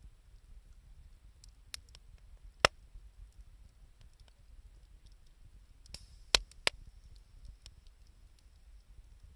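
Wood fire of scrap 2×4 lumber and scavenged wood crackling: a few sharp pops, two louder ones about a third of the way in and about two-thirds in, with a brief hiss just before the second, over a steady low rumble.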